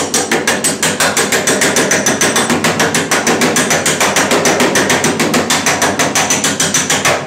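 Air hammer turned down to about 40 psi, driving a slapping spoon against the steel rear quarter panel of a 1968 Mustang fastback in a rapid, even run of light raps that stops near the end. A dolly is pushed out against the panel from behind, which changes the ring of the blows.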